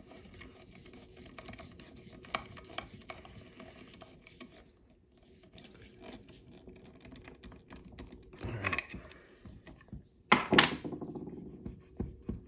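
Small irregular metallic clicks and scrapes of a wrench working a nut onto an idler-wheel bolt, with one loud metal clank about ten seconds in.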